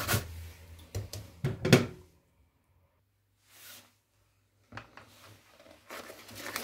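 Potato being grated on a metal box grater into a bowl, with a couple of louder knocks, then a pause. After the pause, a coil whisk scrapes and stirs through grated potato and carrot in the bowl.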